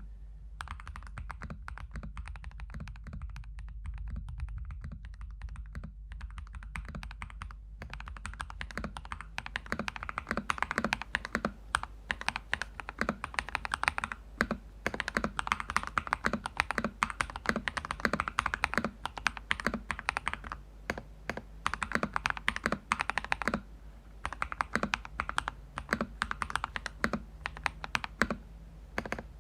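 Typing on a Cheap60 EX 60% mechanical keyboard with lubed Crystal Red linear switches, a firm, thocky keystroke sound. The board has a 1 mm clear plastic sheet in place of foam and double-sided tape under the PC plate. The typing starts light and sparse, then turns fast and continuous about eight seconds in, with a couple of short pauses.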